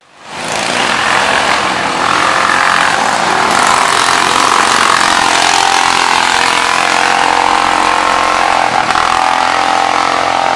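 Small engines of racing riding lawn mowers running hard on a dirt track, a steady loud engine sound that fades in over the first half second.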